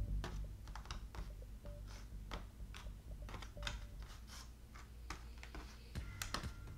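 Small cardboard jigsaw pieces clicking and tapping as they are picked up, shuffled and pressed into place on the puzzle board: light, irregular clicks a few per second.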